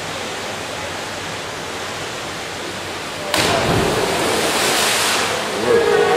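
Steady hiss of pool-hall ambience, then about three seconds in a sudden loud splash as two synchronised divers enter the water from the 10 m platform, with the noise staying loud afterwards.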